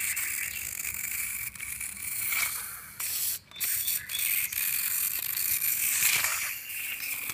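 Small wind-up toy truck's clockwork gear motor whirring steadily as it runs along plastic toy track, with a brief break about three and a half seconds in.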